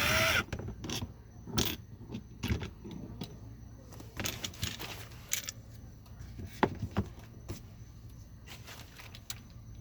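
Irregular small clicks, taps and knocks of plastic and metal door-handle parts and a Torx driver being handled and fitted on a BMW X5 E70 door, with a brief ratcheting sound right at the start.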